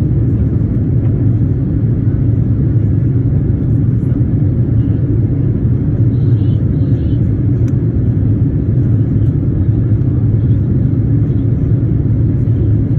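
Steady low rumble of a jet airliner's cabin in cruise flight: engine and airflow noise heard from a window seat.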